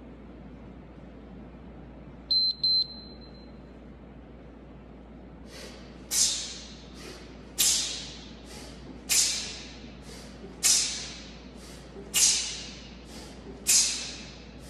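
Two short electronic beeps about two seconds in, typical of an interval timer starting a work period. From about five seconds in, sharp hissing breaths come in time with one-arm kettlebell swings, a lighter breath and then a forceful exhale about every one and a half seconds.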